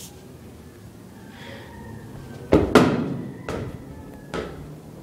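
A football kicked on a tiled floor and knocking against hard surfaces: two sharp knocks close together about two and a half seconds in, the second the loudest, then a few fainter knocks as it rolls and rebounds.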